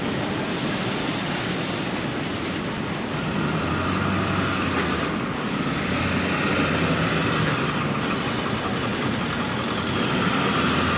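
Steady downtown street traffic noise, a continuous rumble and hiss of passing vehicles.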